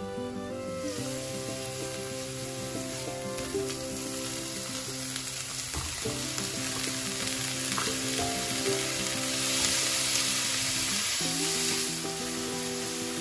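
Chopped onion, garlic and grated carrot sizzling in oil in a frying pan, with a spatula stirring through them. The sizzle starts about a second in and is loudest a little before the end.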